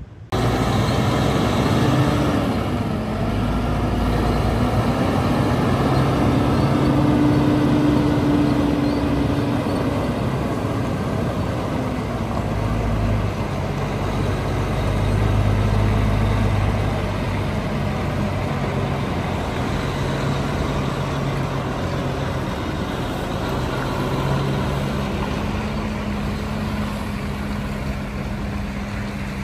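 Diesel engine of a conventional semi-truck prime mover hauling a curtainsider trailer away across a gravel yard, its engine note stepping up and down several times as it pulls through the gears.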